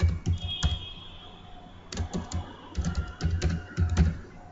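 Typing on a computer keyboard: a few keystrokes, a pause of about a second, then a quicker run of key presses.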